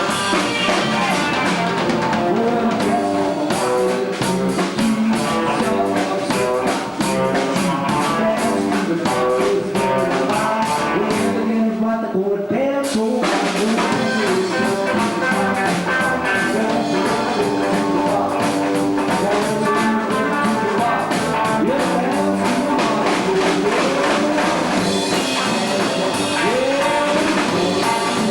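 Live rockabilly band playing: electric guitar over drum kit with rimshots, with a short stretch of singing.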